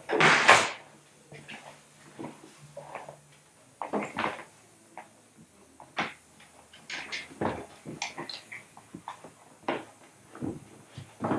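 Hand-work noise on an upholstered seat-back panel on a workbench: a loud, short scratchy rasp at the start, then scattered light taps, knocks and rustles as the panel is handled and taped over its screw holes.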